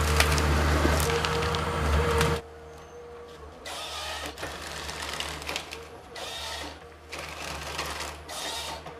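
Komatsu wheeled forest harvester working: its engine runs with a steady hum while wood cracks and snaps as the harvester head handles a tree. About two and a half seconds in the sound cuts off suddenly to a quieter stretch of several short rushing bursts.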